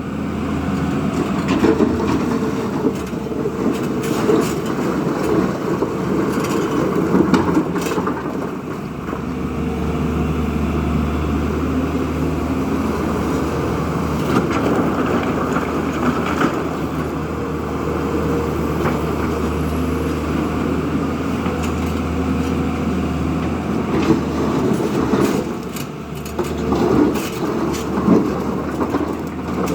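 JCB 3DX backhoe loader's diesel engine running steadily while the machine works. Its low hum grows heavier about a third of the way in, and scattered knocks and clanks come near the start and near the end.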